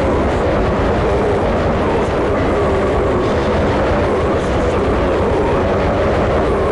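Black/death metal from a raw demo recording: a dense, loud wall of distorted guitars and drums playing without a break.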